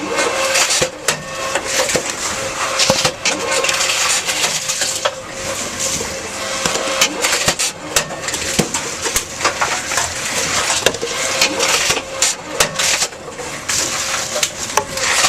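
Tomra T-63 HCp reverse vending machine taking in empty cans and bottles: containers clattering and crunching as they are carried in and crushed, with many sharp knocks over the machine's steady hum.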